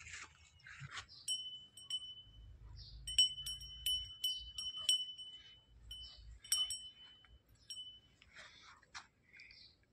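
Small metal bell on a calf's neck ringing in quick, uneven strikes as the calf moves its head, a clear high ring repeated many times, which stops about two seconds before the end.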